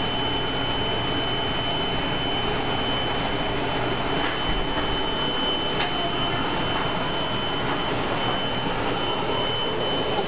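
GMS micromailer paper-handling line running: the feeder, conveyor belts and their motors make a steady whir and hiss with a thin high whine over it, and a light click about six seconds in.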